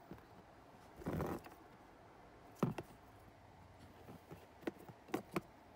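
A wiring harness with plastic multi-pin connectors being handled: a brief rustle about a second in, then a few sharp clicks and taps of the plastic plugs knocking together.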